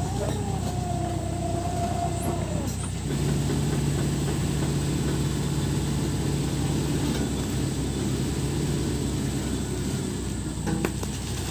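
Case 580 Super M backhoe loader's diesel engine running steadily, with a wavering whine over it for the first three seconds. About three seconds in the engine picks up and runs louder for the rest of the time.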